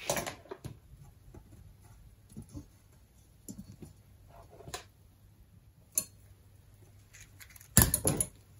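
Soldering work on a copper coax loop: scattered light clicks and taps as a soldering iron and wire are worked against the joint on a wooden bench, with a louder clatter near the end.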